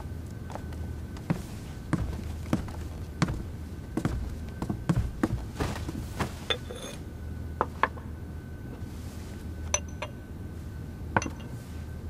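Light clinks and taps of a porcelain bowl and tableware being handled, irregular and scattered, thicker in the first half and sparser later, over a steady low hum.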